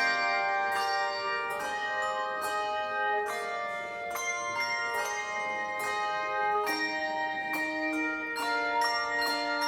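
Handbell choir playing a slow melody over chords. Bells are struck about every three-quarters of a second and left to ring on.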